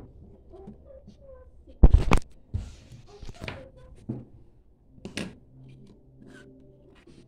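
Handling noise as mobile phones are picked up and set down on a wooden table: a cluster of heavy knocks about two seconds in, lighter knocks after it, and another sharp knock about five seconds in.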